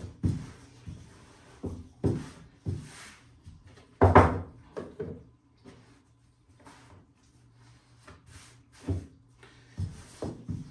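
Rolling pin rolling out pasta dough, with irregular knocks and thumps against the work surface. The loudest knock comes about four seconds in, and there is a quieter stretch after the middle.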